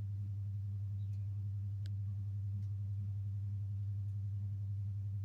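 A steady low hum that does not change, with a few faint ticks.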